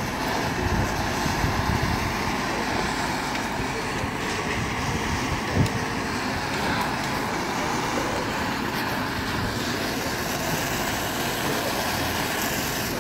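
Handheld gas torch burning steadily with a constant hiss, and one sharp click about five and a half seconds in.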